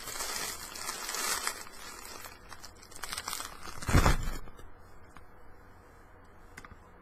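Dry craft moss being pulled apart and pressed onto a hot-glued ornament, crackling and crinkling, with the loudest rustle about four seconds in; after that it goes much quieter.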